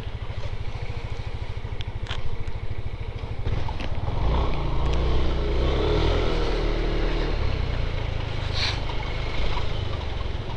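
Motorcycle engine idling with an even, rapid low pulsing; a louder rumble of engine noise swells from about four seconds in and eases off near seven seconds.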